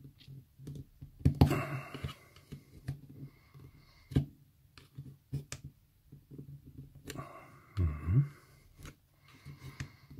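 Small screwdriver prying and scraping against the plastic inside a Philips Sonicare toothbrush handle, with scattered sharp clicks as the internal latches are worked loose. The loudest click comes about a second and a half in.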